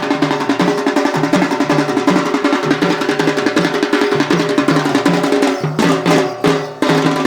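Folk dance music: fast, steady drumming with a repeating low drum pattern. About six seconds in, the beat breaks into a few sharp separate hits before the rhythm resumes.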